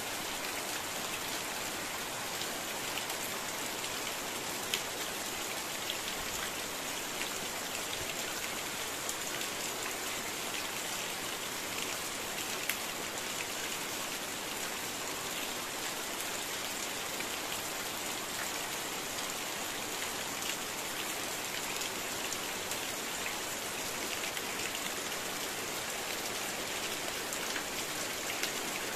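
Heavy rain pouring steadily on foliage, a muddy lane and a corrugated metal roof, a continuous hiss with scattered sharp ticks of individual drops.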